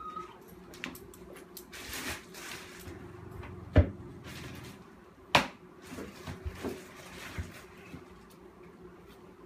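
Handling noises as a leash is worked onto a puppy on a hard floor: scattered clicks and knocks, with two sharp, loud knocks about four and five and a half seconds in.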